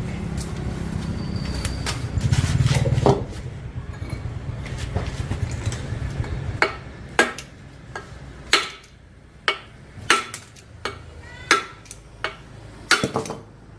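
Metal parts knocking and clinking together. A low steady rumble runs under the first half and stops about six and a half seconds in; after that come about eight separate sharp clinks, each with a short ring.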